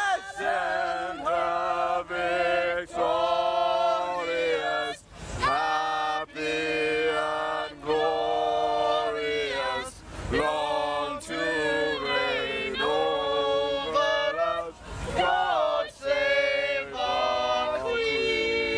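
Choir-like singing: voices hold long notes that slide in pitch, with short breaks every few seconds.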